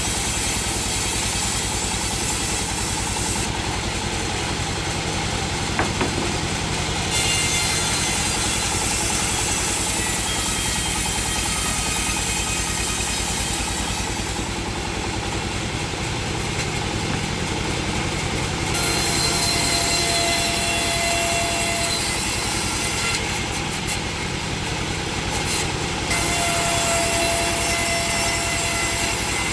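Sawmill machinery running steadily: an engine with a saw cutting wood, and faint high whines coming and going.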